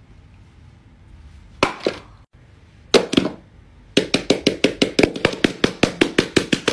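Hands knocking on a boxed phone and a paper mat: two separate knocks, then from about four seconds in a quick, even run of taps at about five a second.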